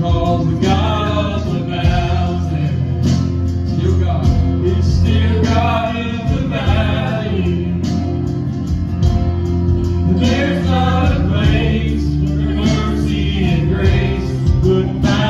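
Live church worship band performing a gospel song: several voices singing together over acoustic guitar, keyboard and steady low bass notes.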